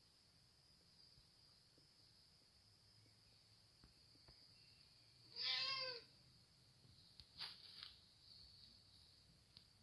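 A young grey tabby cat meows once, about five seconds in: a single call of a little over half a second that rises and then falls in pitch. It is a hungry cat asking for food.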